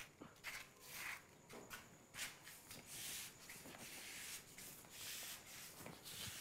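Faint footsteps of a child walking on a tiled floor, with the soft rustle of a plastic shopping bag he carries.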